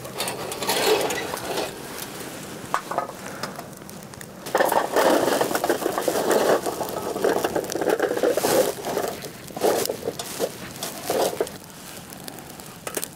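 Hot charcoal in a small portable grill being shifted about, with irregular scraping and clattering that is loudest and densest from about four and a half to nine seconds in.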